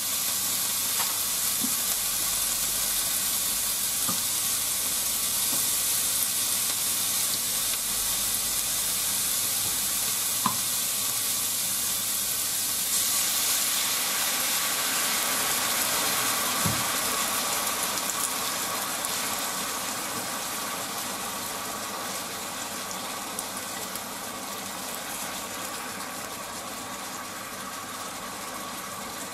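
Pork and onion slices sizzling in a frying pan while being stirred with chopsticks, with a few light clicks of the chopsticks on the pan. About halfway through, sauce is poured in and the sizzle flares up, then slowly dies down.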